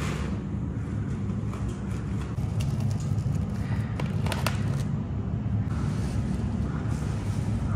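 Steady low drone of bakery machinery, with a short crackle of a woven plastic flour sack being torn open about four seconds in.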